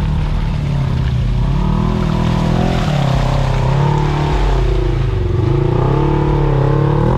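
Polaris RZR side-by-side's engine running under load through mud, its pitch rising and falling several times as the throttle is worked.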